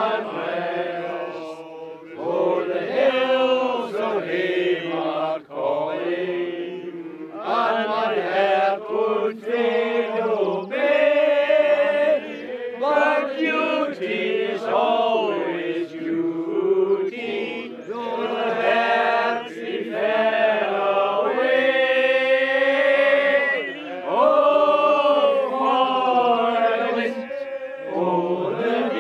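A group of men singing a slow Scots-language song unaccompanied, holding long notes.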